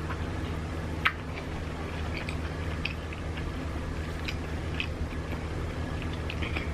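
Close-miked chewing of a sushi roll: soft wet smacks and small clicks from the mouth, with one sharper click about a second in. A steady low hum runs underneath.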